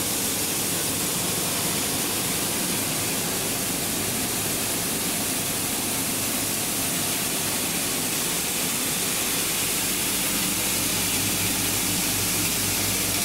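Plastic pulveriser running at full speed, a steady rush of noise from the grinding mill and its blower pushing powder through the cyclone, with a low steady hum underneath.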